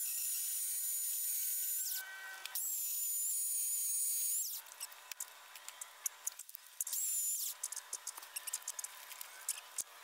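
Corded Craftsman electric chainsaw running in three bursts as it cuts through logs: two of about two seconds each, then a short one. Scattered clicks and knocks follow in the second half.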